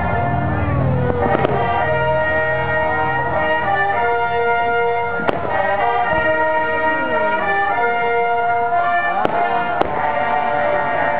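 Orchestral music with brass holding long chords, broken by a few sharp firework bangs: one a little over a second in, one around five seconds, and two close together near the end.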